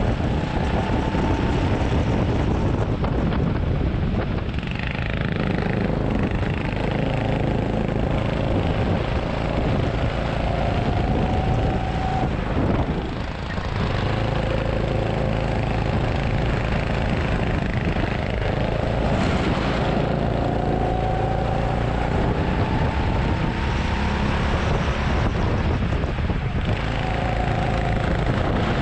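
Go-kart motor heard from on board at racing speed, its pitch rising along the straights and falling back into the corners. About halfway through the sound drops briefly as the kart slows for a turn.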